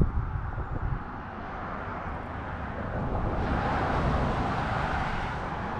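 Street traffic: a passing vehicle's noise swells and fades about three to five seconds in, over a steady low rumble.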